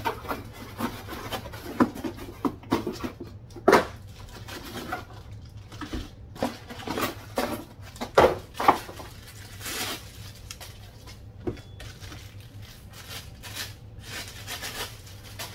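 Plastic wrapping crackling and rustling and a cardboard box insert scraping as packed roof-rack parts are pulled out and unwrapped, with irregular sharp knocks of the parts against each other and the box; the loudest knocks come about 4 s and 8 s in.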